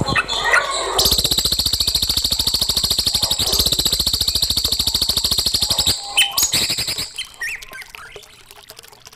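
Songbird singing: a few high chirps, then a very fast high trill of many evenly spaced notes lasting about five seconds, followed by scattered chirps that fade near the end.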